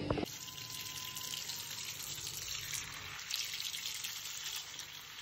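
Kitchen tap running in a steady stream into a steel bowl of potatoes in a steel sink, the water splashing as the potatoes are rinsed.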